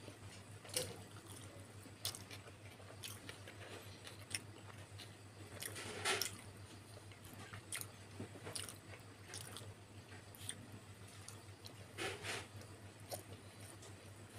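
Close-up wet chewing and mouth sounds of a person eating steamed pork momos and chicken lollipop by hand, with scattered small smacks and clicks and two louder wet mouth sounds, one midway and one near the end. A low steady hum runs underneath.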